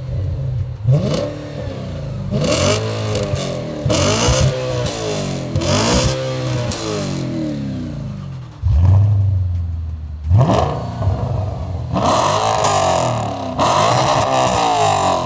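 Audi B7 RS4's naturally aspirated 4.2-litre V8 blipped in a series of short free revs while stationary, first through the standard exhaust. About nine seconds in it switches to the same engine revving through a newly fitted Milltek exhaust system, which sounds louder and raspier.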